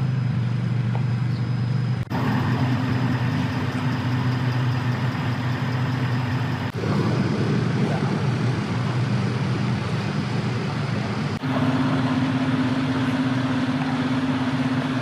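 Steady low engine drone with a constant hum, broken by abrupt cuts about 2, 7 and 11 seconds in.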